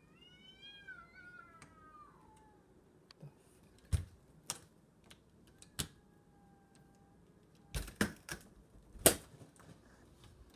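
Stray cat yowling in a fight between two strays: one long call that rises and then falls in pitch, then a fainter, steady call a few seconds later. Sharp clicks and knocks come in between and after, the loudest about eight and nine seconds in.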